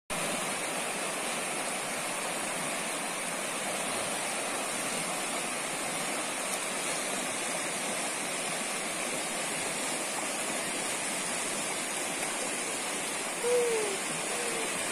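Steady rushing of a fast river over rapids. Near the end a few short voice sounds rise briefly above it.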